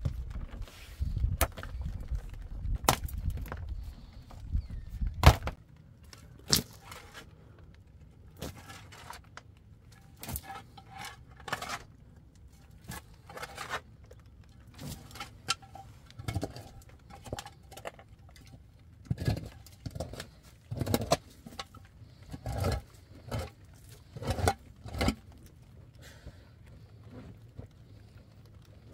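Irregular series of sharp knocks and clinks, as of hard objects being handled or struck, with a low rumble under them for the first five seconds or so.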